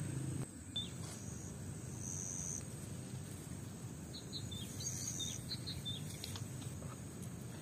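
Outdoor rural ambience: insects chirping in short bursts of about half a second over a faint steady high insect drone, with a few brief bird calls, over a low steady background noise.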